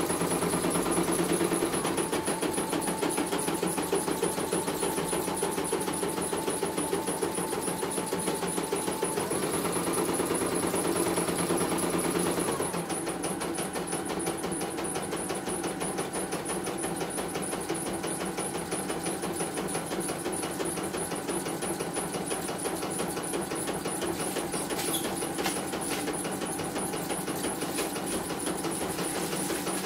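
CNY E900 home embroidery machine stitching a design, running again after a repair: a rapid, even needle chatter with a motor whine under it. About twelve seconds in the sound changes and becomes a little quieter.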